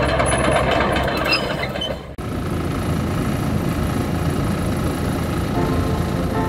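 Diesel engine of a Hitachi Zaxis ZX75US excavator running steadily, with an abrupt cut about two seconds in, after which the engine note continues with a different character.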